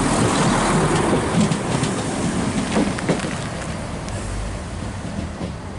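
Chiltern Railways Class 168 diesel multiple unit arriving at the platform, its rumble and wheel clatter easing as it slows, with a few sharp clicks and a brief squeal about three seconds in.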